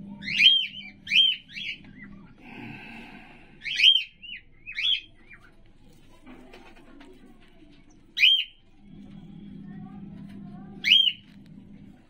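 Cockatiel calling: loud, sharp chirps that rise and fall in pitch. They come in a quick run of four at the start and a few more around four seconds in, then single calls near eight and eleven seconds. A brief harsh noise sounds about two and a half seconds in.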